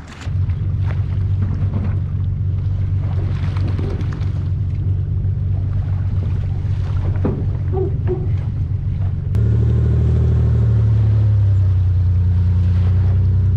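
An engine running steadily at low revs, a low even hum. About nine seconds in it cuts abruptly to a different, deeper steady engine hum.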